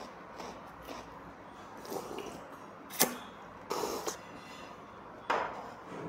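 Table sounds during a meal: a sharp clink of a porcelain cup or bowl about three seconds in, then a short sip from a small teacup, and another sudden sound near the end that tails off.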